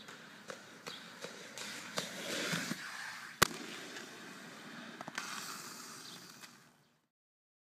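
Skateboard rolling over pavement, its wheels clacking over joints about twice a second, with one sharp, loud smack of the board about three and a half seconds in. The sound stops abruptly near the end.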